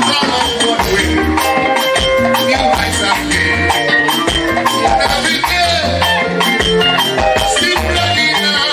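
Live gospel band playing an instrumental passage: a steady beat over a repeating bass line, with shakers and held keyboard or guitar notes.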